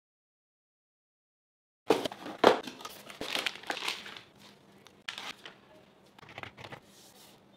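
Plastic zip bag of raw chicken crinkling as it is handled and opened, starting about two seconds in. After that come quieter handling sounds and a few soft slaps as the chicken breasts are laid on a wooden cutting board.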